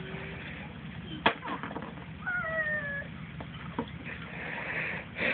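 A single high cry, wavering at first and then falling slightly in pitch, lasting just under a second about two seconds in, after a sharp click a little over a second in.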